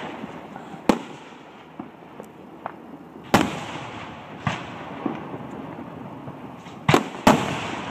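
Fireworks display: aerial shells bursting with sharp bangs, the loudest about a second in, at about three and a half seconds, and twice in quick succession near the end, with fainter pops between and a short echo after each bang.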